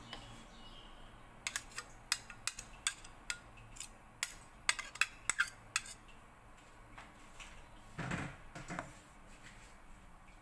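Metal kitchenware clinking: about fifteen sharp, irregularly spaced clicks over some four seconds, then a short duller scrape near the end.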